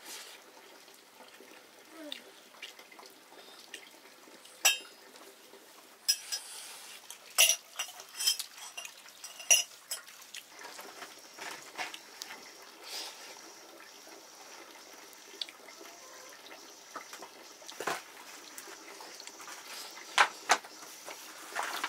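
Metal cooking pots and utensils clinking and knocking at irregular moments, several sharp clinks in quick succession around the middle and two more near the end.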